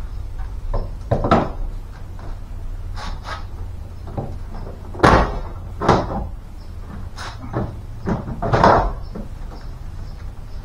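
1998 Ford Mustang interior door trim panel being worked loose from the door: a series of sharp clicks and knocks as its hooks and clips are pulled free, loudest about five and nine seconds in.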